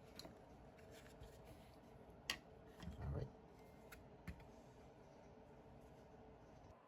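A few faint, sharp clicks and one soft low bump from hard plastic model parts being picked up and set down, over quiet room tone.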